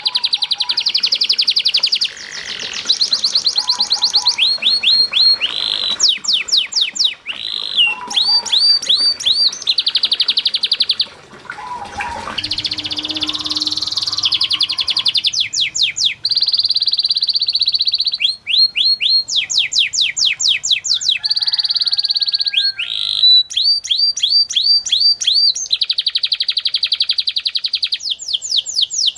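Domestic canary singing a long, unbroken song of fast trills. Each phrase is a rapid run of identical notes, and the bird switches to a new note type every second or two.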